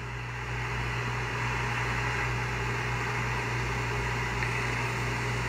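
Steady background hum with an even hiss above it, unchanging throughout, with no speech.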